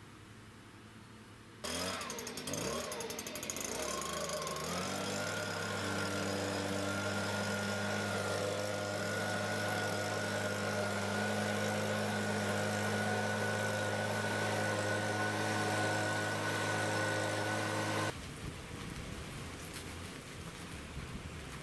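Stihl handheld leaf blower starting up suddenly, revving up over a few seconds, then running steadily at full throttle before stopping abruptly near the end.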